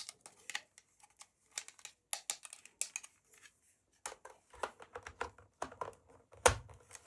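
Hands handling a toy and its packaging: a run of small, sharp clicks and taps, with a heavier thump near the end.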